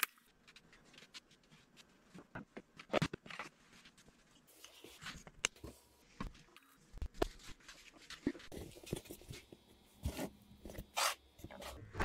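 Irregular scraping, rubbing and tapping of small parts being worked by hand at a wooden workbench: a thin rod rubbed with an abrasive pad, and a cloth rag handled. The louder knocks come about 3 seconds in and near the end.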